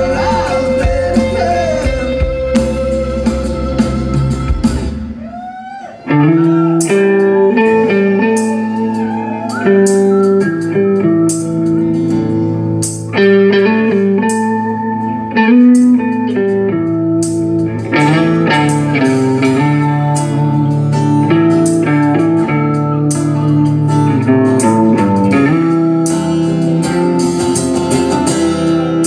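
Live band playing an instrumental guitar passage, acoustic and electric guitars together. About five seconds in, the full low-end sound drops away, and the guitars carry on alone.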